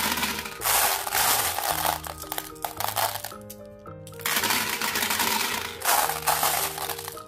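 Glass marbles clattering in several long rushes as handfuls are dropped into the plastic drum of a toy cement mixer truck and scooped from a plastic bowl, over background music.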